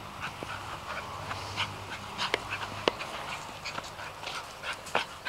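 A poodle's quick breathing and sniffing, short breathy puffs a few times a second, with two sharp clicks just under three seconds in.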